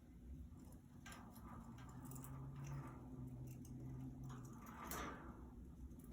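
Faint scattered tapping and scratching of budgerigars moving about their cage, the loudest tap about five seconds in, over a faint low hum.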